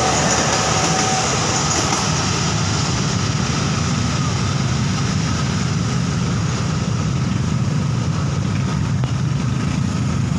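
Passenger coaches of a train rolling past and receding down the track, with a thin wheel squeal that fades away in the first few seconds, over a steady low rumble.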